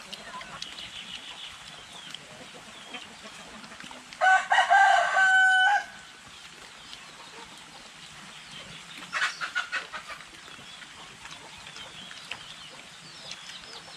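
A rooster crows once, about four seconds in, a loud call of under two seconds ending on a held note. Around nine seconds a quick run of short clucks follows.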